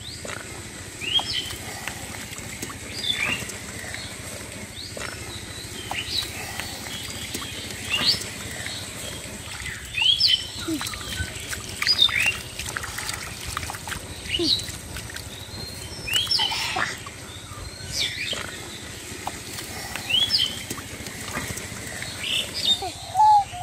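Small birds chirping: short, sharp high calls repeat every second or two over a steady faint hiss. Near the end a lower, repeated cooing call begins.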